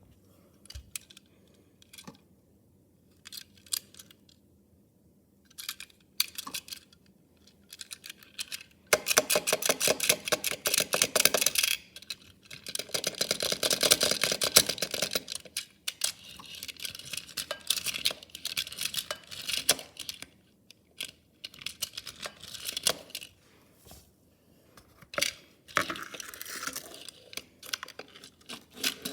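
Packaging being handled and opened: scattered clicks and taps, then a few seconds of rapid crackling and a louder stretch of tearing or rustling about halfway through, followed by more light clicks and rustles.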